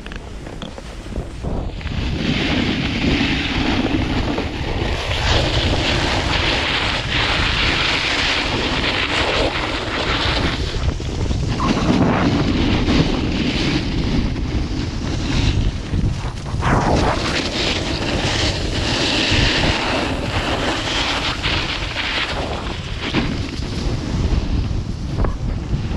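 Wind buffeting the microphone over the hiss and scrape of a snowboard sliding on groomed snow, rising and falling in waves every few seconds as the board turns.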